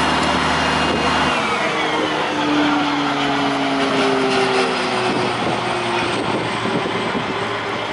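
Airport crash tender's engine and fire pump running hard as the boom nozzle sprays water, with a steady low hum. About a second and a half in the hum drops out as the pumping stops, and the machinery winds down, its tones falling slowly in pitch over the next few seconds.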